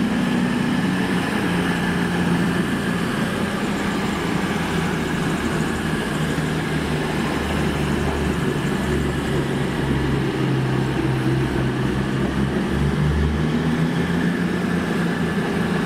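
CrossCountry Voyager diesel multiple unit running into the platform on its underfloor diesel engines: a steady low engine drone whose deepest note swells and fades in the middle.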